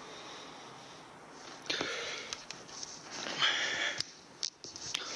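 A person sniffing and breathing hard in short noisy bursts, with a few sharp clicks near the end.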